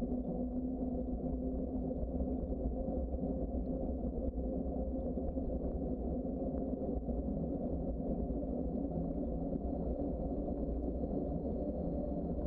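Steady low rumble of a bicycle ride along a paved trail: tyre and road noise mixed with wind on the microphone.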